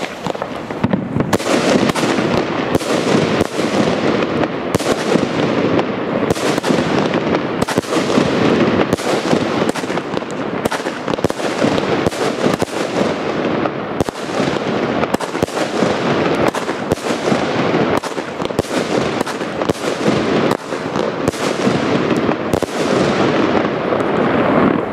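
A 19-shot consumer firework battery (cake) firing its shots one after another: a sharp bang from each launch and burst, about one or two a second, over a constant din that runs through the whole volley.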